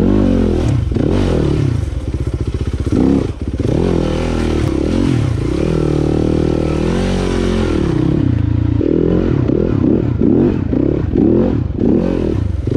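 Yamaha dirt bike engine revving up and down under load while picking its way over rocks, with a run of quick throttle blips near the end.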